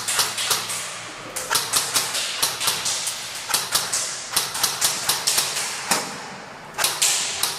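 Airsoft guns firing a long run of sharp shots, several a second in quick clusters with short pauses: suppressive fire.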